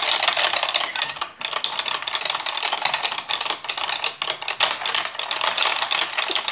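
Rapid, continuous plastic clicking and rattling from the push-button water jets of a Hydro Strike tabletop game being pressed over and over at both ends of the board.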